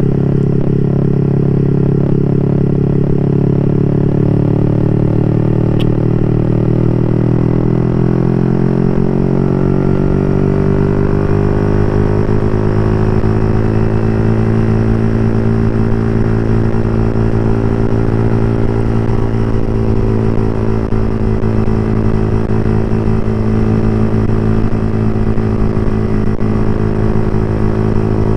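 Yamaha R15 V3's single-cylinder engine running through an open aftermarket exhaust, ridden at a steady cruise. The pitch drifts a little over the first several seconds, then holds steady.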